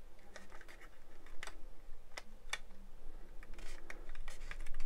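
Light, irregular clicks and taps of hard plastic model-kit parts, the pieces of an Airfix 1/24 scale Hellcat, knocking together as a part is pressed into a groove in the fuselage half for a dry fit.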